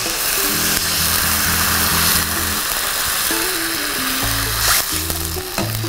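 Water poured into a pan of hot mustard oil, masala and fried potatoes, hissing loudly as it hits the oil and dying down near the end. Background music with a stepping bass line plays under it.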